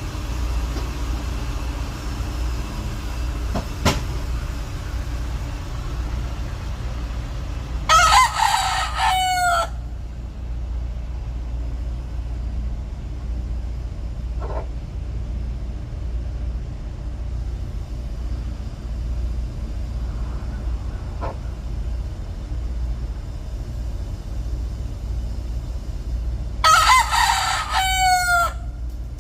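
Rooster crowing twice, about twenty seconds apart, each crow lasting under two seconds, over a steady low background rumble.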